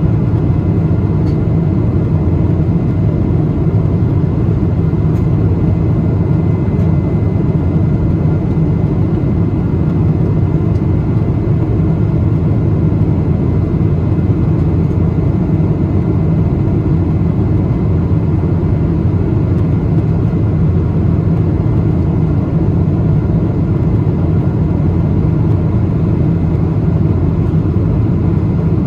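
Steady cabin noise of a Boeing 777-200 in cruise: a constant low rush of airflow and engine drone, with faint steady tones above it, heard from inside the passenger cabin.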